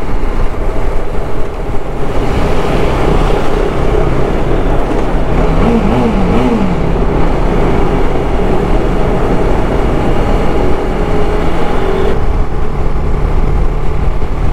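TVS Apache RR 310 single-cylinder motorcycle riding at a steady cruising speed, its engine note mixed with heavy wind rush on the riding microphone.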